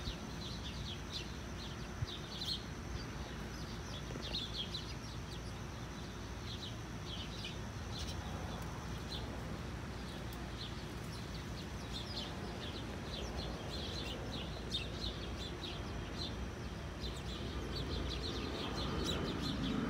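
Small birds chirping: many short, high chirps in quick runs, over steady low background noise.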